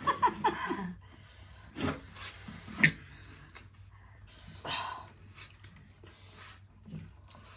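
Close-miked eating sounds: chewing and mouth noises with soft rubbing, and a few sharp clicks, the loudest about three seconds in. A brief vocal sound opens it.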